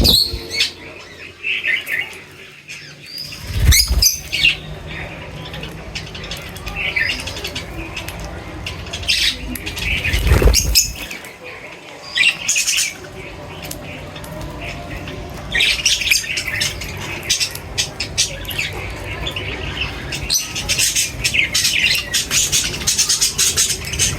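Birds chirping and calling over and over in short bursts, with two loud low thumps about four and ten seconds in.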